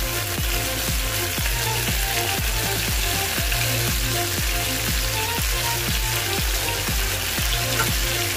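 Chicken wings sizzling in a frying pan as adobo sauce is poured over them, under background music with a steady beat of about three pulses a second.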